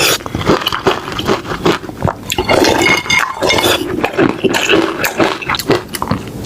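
Cutlery clinking and scraping against bowls and plates, with close-up mouth sounds of eating, in many quick irregular clicks.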